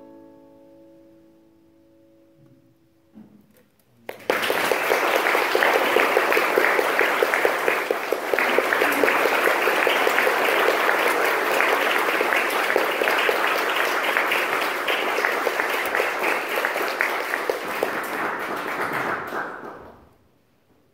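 Final piano chord ringing out and dying away, then audience applause breaking out about four seconds in, holding steady and fading out near the end.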